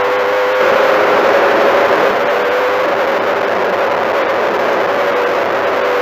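Four-cylinder Mini-Stock race car engine running hard at steady high revs under racing load, heard from inside the cockpit with wind and road noise. It gets a little louder for a second or so near the start.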